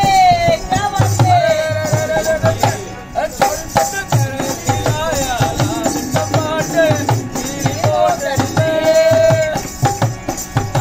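Rajasthani folk music: a man singing over a dholak's regular low hand strokes, with a harmonium holding notes underneath.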